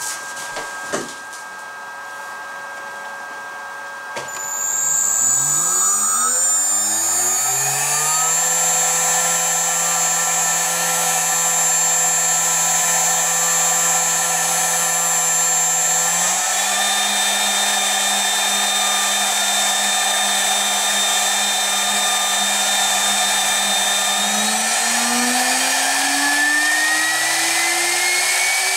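A GDZ-80-1.5 1.5 kW air-cooled spindle motor, driven by a BEST FC300 frequency inverter, spins up about four seconds in with a rising whine. It holds at about 10,000 rpm with a small step up partway through, then winds up again near the end toward 24,000 rpm, with a high inverter whine above it.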